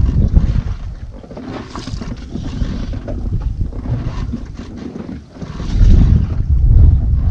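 Wind buffeting the microphone over boat and sea noise. The low rumble surges loud at the start and again from about six seconds in.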